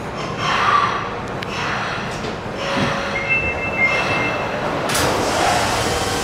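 Osaka Metro Midosuji Line subway train rumbling at the platform. A high, steady whine lasts about a second in the middle, and a sharp knock comes about five seconds in.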